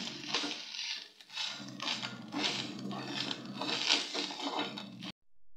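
Metal spoon stirring and scraping grated coconut, shallots and dried red chillies around a metal pan in repeated strokes, the tempering frying in oil as it is browned. The sound cuts off suddenly near the end.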